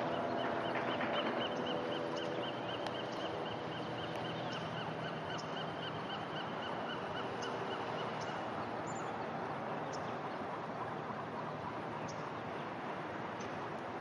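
A departing propeller aircraft's engine drone, fading over the first few seconds into a steady rumble of noise. A high warbling tone runs over it and stops about two-thirds of the way through, with a few faint high chirps.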